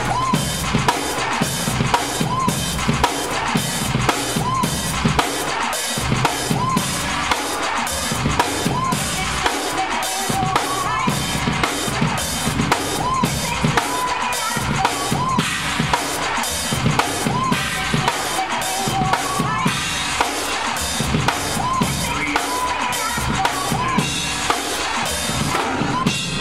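Drum kit played live with sticks in a steady, driving rhythm of bass drum, snare and cymbal strikes, about two strong hits a second.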